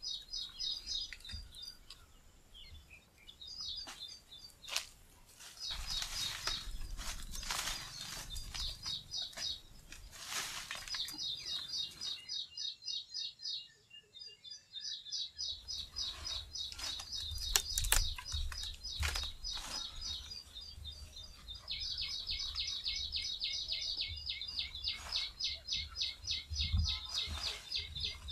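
Birds chirping in long, fast, evenly repeated high trills, with scattered short rustling noises and a low rumble underneath. The sound drops out briefly about halfway through.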